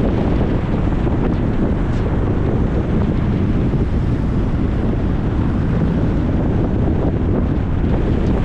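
Steady road noise of a car driving: an even, loud rush of tyre and wind noise with a low rumble, unchanging throughout.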